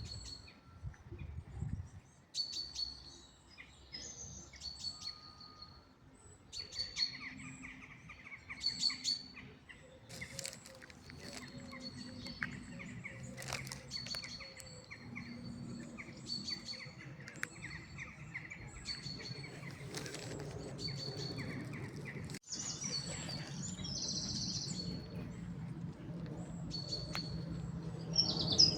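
Wild birds chirping: short, high chirps repeated every second or so, with a second, lower call joining in. A low rumble rises underneath over the last third.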